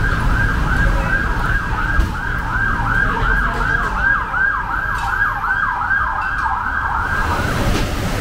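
Emergency vehicle siren in a fast yelp, a quick rising-and-falling wail about three times a second, that stops near the end, over a steady low background rumble.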